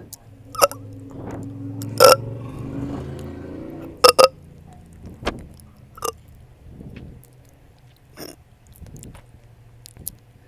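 A person hiccuping in short, sharp jolts every second or two, about eight times. A long, low, drawn-out burp runs from about one to four seconds in, with a hiccup breaking through it.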